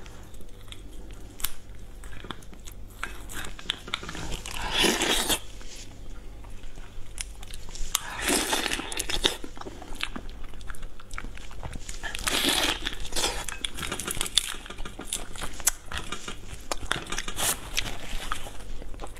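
Shells of raw marinated prawns being pulled apart and cracked by hand, a run of crisp cracks and crackles. Eating sounds, biting and chewing on the shells, swell louder three times.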